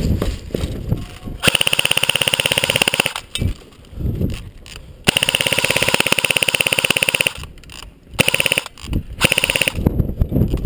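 Airsoft gun firing full-auto in rapid bursts: one of about a second and a half, a longer one of about two seconds, then two short bursts.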